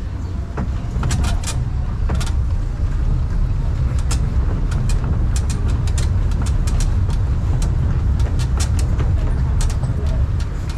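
Tourist road train rolling over cobblestones: a steady low rumble of its motor and wheels, with rapid clicks and rattles from the carriages that come thickest from about four seconds in.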